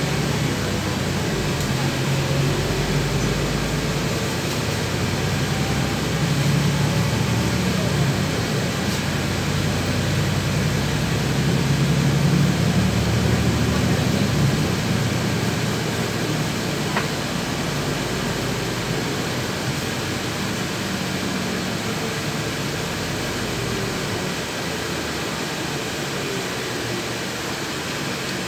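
Inside a LiAZ 6213.21 articulated city bus on the move: a steady engine drone and road noise. The engine grows louder through the middle as the bus pulls, then eases off in the second half.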